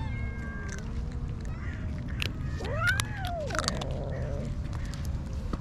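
Stray cats meowing: several drawn-out meows rising and falling in pitch, the loudest about three seconds in, with scattered short clicks over a steady low rumble.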